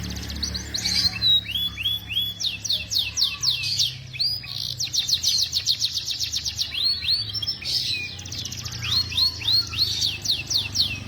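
Domestic canary singing a long, fast, continuous song. It runs through series of repeated whistled notes that sweep up or down, several to the second, changing from one phrase type to the next.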